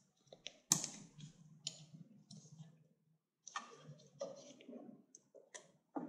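Faint, scattered clicks and small ticks of side cutters and a metal bracket being worked off a motorcycle throttle body. The sharpest click comes about three-quarters of a second in, and a few more light clicks follow at irregular gaps.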